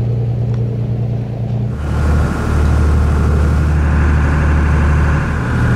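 Fishing charter boat's engine running steadily under way. About two seconds in the sound jumps to a louder, deeper drone with the rush of wind and water, as heard close up on the boat's deck.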